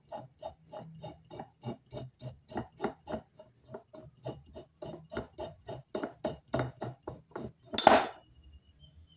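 A glass beer bottle is turned by hand against the glowing resistance wire of a homemade hot-wire bottle cutter, giving small even clinks about three or four times a second over a low steady hum. A little under eight seconds in there is a single sharp crack as thermal shock splits the bottle along the heated line.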